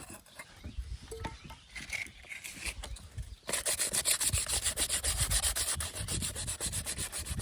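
Hand scrubbing or sanding on the punctured pipe to clean the surface around the hole. It starts as a few light scrapes, then about three and a half seconds in turns into fast, even back-and-forth strokes, several a second.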